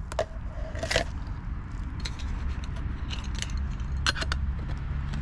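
Metal spoon clinking and scraping against the inside of a small metal camping pot as it stirs instant cappuccino, in scattered sharp taps. About four seconds in, the pot's metal lid is set on with a couple of clinks.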